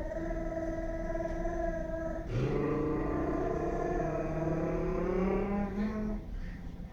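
A baby and a man vocalising together in long, drawn-out tones. A higher steady tone is held for about two seconds, then a deep voice joins and slides slowly upward in pitch, like an engine revving, for about four seconds alongside the higher voice before both stop.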